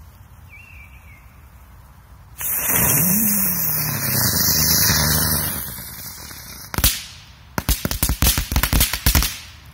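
A small ground firecracker (a 'rose') fizzing loudly for about four seconds as it throws sparks and smoke. It goes off with a sharp bang, followed by a rapid string of about ten crackling pops.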